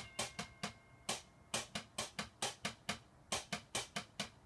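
Chopsticks tapping quickly on a homemade bucket-and-pot drum kit: light, crisp clicks, about five or six a second, in short runs broken by brief gaps about a second and three seconds in.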